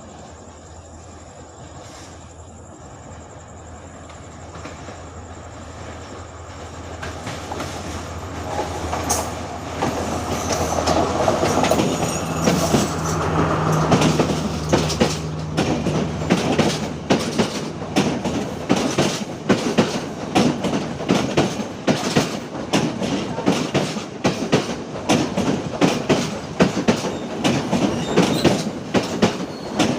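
A train approaching and passing close by. It builds from a distant rumble to loud, with a low steady engine note as the locomotive goes past. Then comes a rapid, regular clickety-clack of the carriage wheels over the rail joints.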